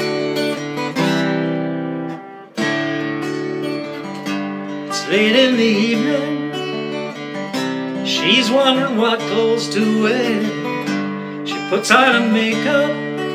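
Acoustic guitar strumming chords. From about five seconds in, a wavering melody line plays over it.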